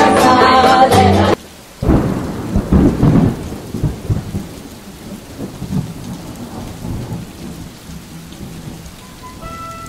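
Music cuts off about a second in, followed by a thunderclap and rolling thunder over steady rain, the rumbling fading away over several seconds. New musical notes begin near the end.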